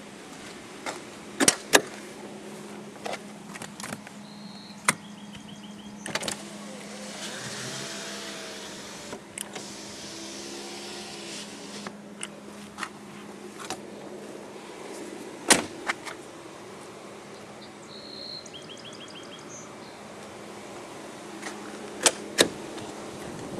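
A car's controls being worked: a series of sharp clicks and knocks, with an electric motor whining briefly near the middle, over a steady low hum. Two short high beeps come about a quarter of the way in and again later.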